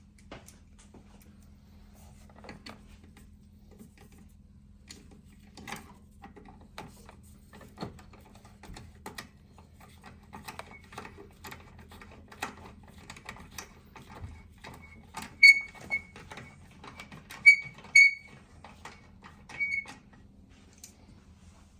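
Scattered small clicks and taps of hand work on the coolant tank's two 10 mm mounting bolts and their hardware in the engine bay. In the second half come several short, high squeaks, the loudest sounds here.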